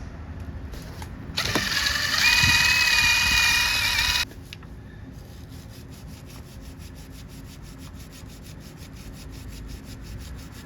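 A small power tool motor whirs for about three seconds, then a steady run of rapid mechanical clicks follows, about eight a second.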